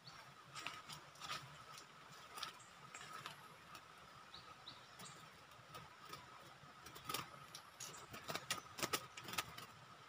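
Rustling, clicks and knocks of a bamboo bird cage being covered with a cloth and taken down from a branch, sharpest and most frequent in the last three seconds. A faint steady high tone runs underneath, with a few brief chirps near the middle.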